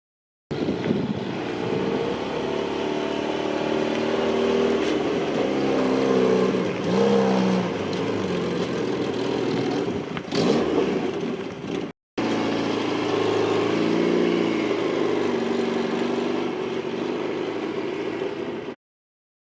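Carbureted twin-cam four-cylinder engine of a 1979 Fiat 124 Spider running, with a couple of brief rises in engine speed, in two separate clips with a cut between them.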